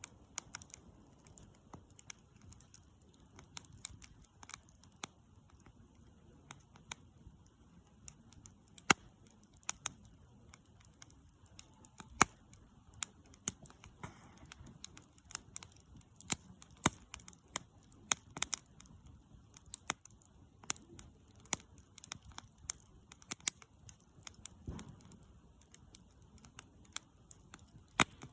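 Wood campfire crackling, with irregular sharp snaps and pops, a few much louder than the rest.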